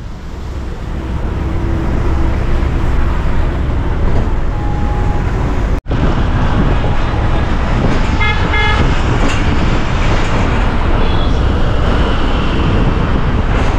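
Loud road traffic noise from a moving vehicle, a steady rumble. About eight seconds in, a vehicle horn honks in a quick run of short beeps.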